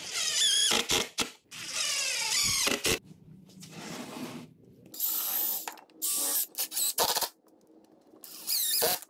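DeWalt 20V cordless impact driver driving exterior deck screws into treated pine boards. It runs in about five short bursts, with short pauses between them.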